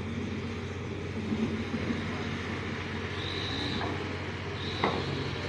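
Steady low engine drone with a constant hum beneath it. A thin high tone sounds twice in the second half, and a single knock comes near the end.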